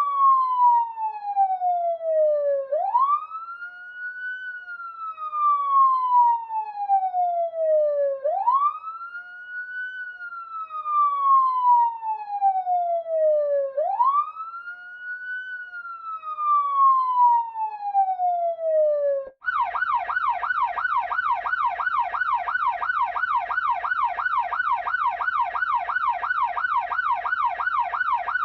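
Electronic police siren in its wail mode: each cycle rises quickly and then falls slowly in pitch, repeating about every five and a half seconds. About two-thirds of the way through it switches abruptly to the fast yelp, the pitch going up and down about four times a second.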